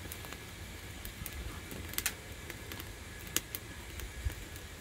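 A few light, sharp clicks or taps over a low steady rumble, the clearest about two seconds and three and a half seconds in.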